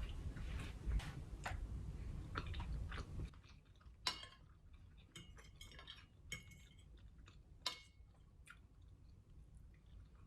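Close-up chewing of food, with scattered small clicks and taps. The background noise drops suddenly about a third of the way in.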